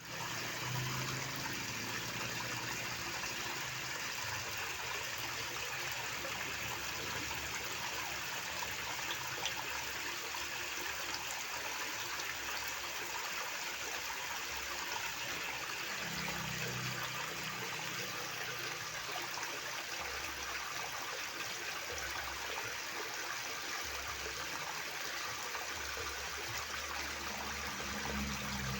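A river's water running over rocks in a steady, even rush with some splashing and trickling.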